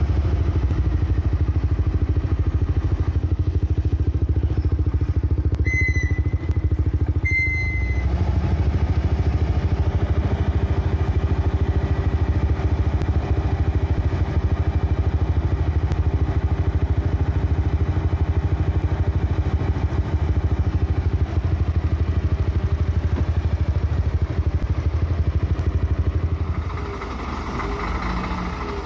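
Scania heavy-haul truck's diesel engine running at low speed as it pulls a loaded lowbed trailer, a steady low drone. Two short high-pitched tones sound about six and seven and a half seconds in. Near the end the engine sound drops and settles lower.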